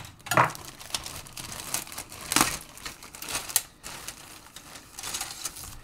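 Clear plastic bag of model-kit sprues crinkling as it is handled and opened, with several sharper crackles along the way.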